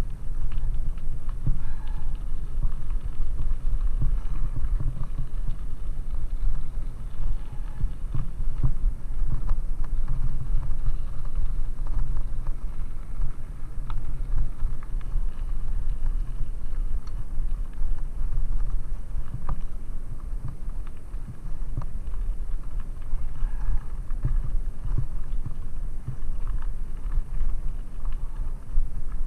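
Wind rumbling on a helmet-mounted camera's microphone while riding a bicycle down a loose gravel track, with tyres crunching over the stones and scattered clicks and rattles throughout.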